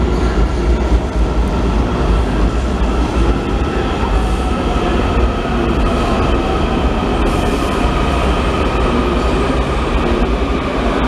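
Washington D.C. Metro subway train running past at a station, a steady loud rumble with a faint high whine over it.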